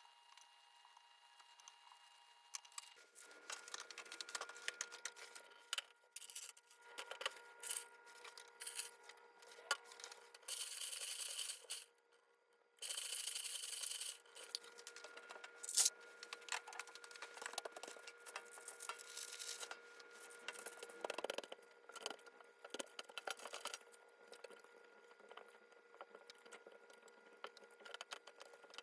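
HHKB Professional 2 Topre keyboard being cleaned by hand, with scattered plastic clicks, scrapes and rubbing of keycaps and case starting about three seconds in. Around the middle come two steady rustling noises of about a second and a half each.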